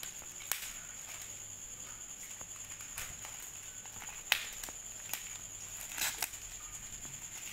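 Clear plastic shrink wrap being peeled and pulled off a phone's cardboard box by hand. The film rustles and crinkles, with a few sharp crackles: one a little past four seconds in and two close together about six seconds in. A faint steady high-pitched whine runs underneath.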